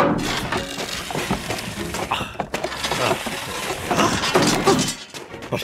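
A busy run of cartoon clattering and crashing sound effects: rapid knocks, bangs and breaking sounds piled on top of one another, dying down near the end.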